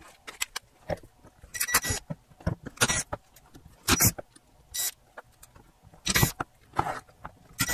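Cordless power driver running in short bursts, about seven in all, as it backs out the screws holding the subwoofer amplifier's heat-sink sections together, with small clicks between bursts.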